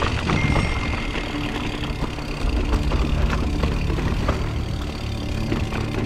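Mountain bike descending a steep, technical rocky trail: a steady low rumble of tyres rolling over rough ground, broken by frequent short knocks and rattles from the bike.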